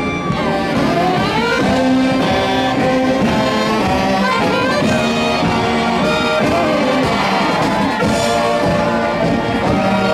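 A Mummers string band playing live, with a massed saxophone section carrying the tune.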